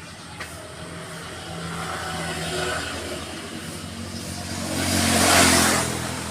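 A motor vehicle passing by, its engine sound building to a peak about five seconds in and then fading.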